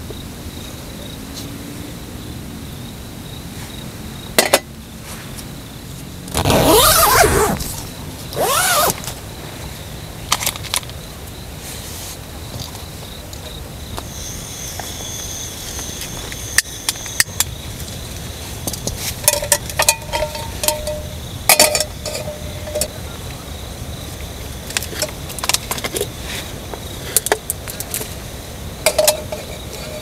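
Steady insect hum over forest background noise. About six seconds in comes a loud sound with a rising and falling pitch, and a shorter one follows near nine seconds. Many short clicks and knocks are scattered through the second half.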